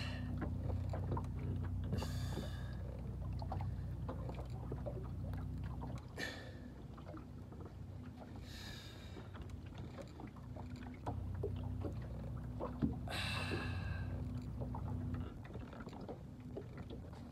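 Boat motor running with a steady low hum that drops away about six seconds in and comes back about five seconds later. Four short, high-pitched calls sound over it.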